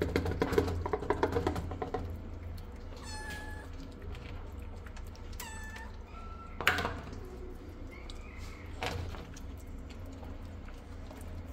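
A cat meows twice, short high calls about three and five and a half seconds in, with a fainter call later. Before them comes a run of clicks and taps as wet food is tipped from a metal can into a plastic bowl, and a sharp burst of noise comes near the middle.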